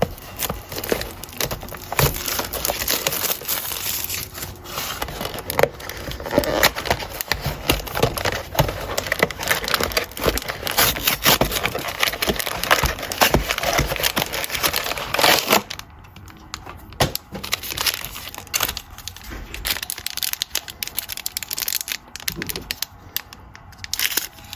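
Plastic wrapping of a trading-card box and pack being crinkled and torn open, a dense run of crackling and rustling. About two-thirds of the way through it drops to quieter, scattered rustles and clicks as the cards are handled.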